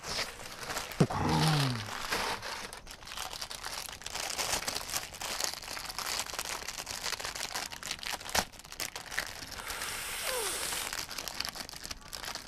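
Clear plastic wrapping and tissue paper crinkling as a new motorcycle helmet visor is handled and unwrapped from its box. A few sharp clicks come through the crackle.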